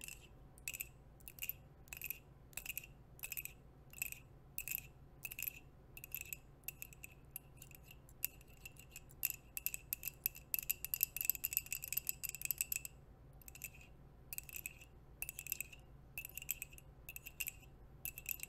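Long nail-ring tips tapping on a ceramic mug, each tap giving a short, high ring. The taps come steadily about one and a half a second, with a flurry of fast tapping from about nine to thirteen seconds in.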